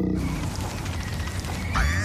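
Cartoon sound effects: a steady rushing noise with a low hum under it, then a short sliding, whistle-like sound near the end.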